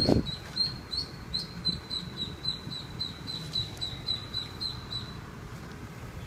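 Ducklings peeping: a steady run of short, high peeps, about three a second, that stops about five seconds in. A low thump right at the start.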